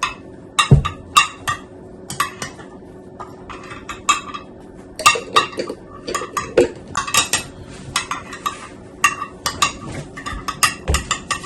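Metal spoon clinking and scraping against a dish, in irregular clusters of short taps, as tomato sauce is spooned and spread over chicken.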